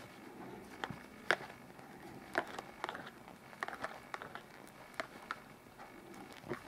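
Knitting needles clicking as stitches are worked: a dozen or so light, irregular ticks, the sharpest about a second and a quarter in.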